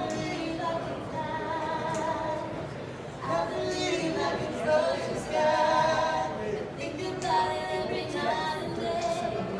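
A group of voices singing in harmony without instruments, in phrases of long held notes.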